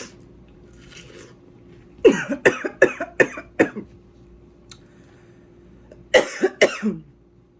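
A woman coughing after choking on juicy watermelon: a run of about five quick coughs a couple of seconds in, then two more near the end.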